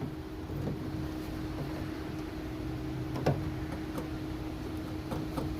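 A few light clicks and taps from hands working the car's plastic trunk-lid trim and its clips, with one sharper click about three seconds in, over a steady low hum.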